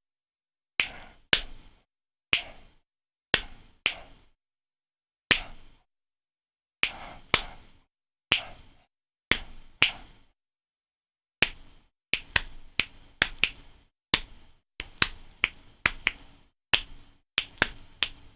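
Finger snaps on one hand against slaps on the leg, played together as a 4-against-3 polyrhythm: four evenly spaced snaps against three leg slaps. The clicks are sparse at first, then come faster and denser from about eleven seconds in.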